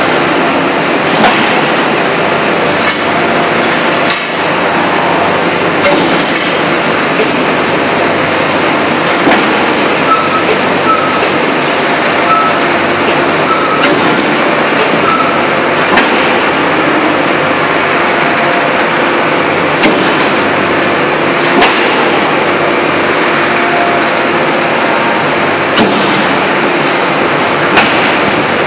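Open-die forging press working a red-hot ring forging: a loud steady machinery noise, broken by sharp knocks every couple of seconds.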